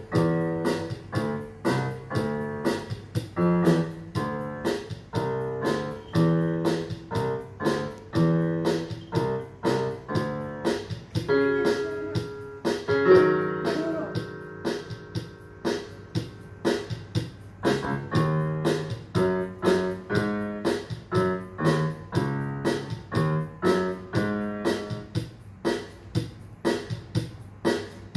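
Electronic keyboard playing a tune in a piano voice, notes struck at an even pace of about three a second.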